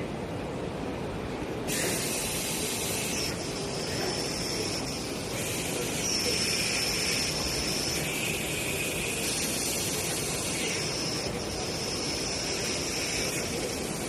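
Machinery running in a steady din, with a high whine and hiss that switch on and off every second or two.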